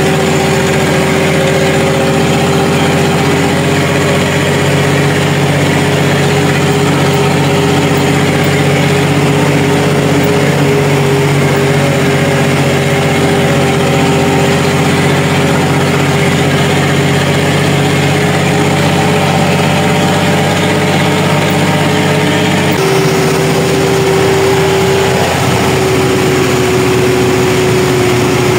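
Tractor engine pulling a grain cart, heard from inside the cab: a steady drone with a constant whining tone over it. The sound shifts abruptly about 23 seconds in and then runs on steadily.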